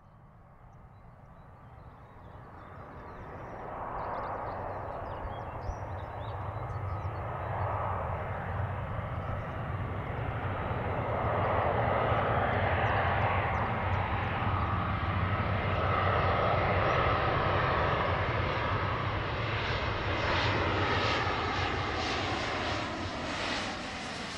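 Jet engine noise of an Airbus A321-231 on final approach with its landing gear down, from its IAE V2500 turbofans: a low rumble with a broad rushing noise above it. It grows from faint to loud over the first dozen seconds, then holds loud.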